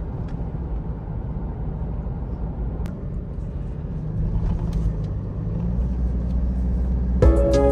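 Car cabin noise while driving: a steady low rumble of engine and road. Music comes in near the end.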